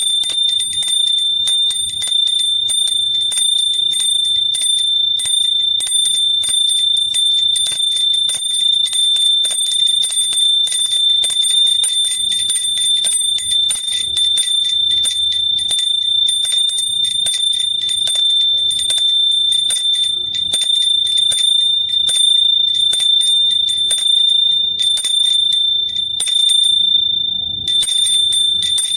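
A small hand bell shaken continuously, its clapper striking several times a second over a high, steady ring. The striking pauses briefly near the end, then resumes.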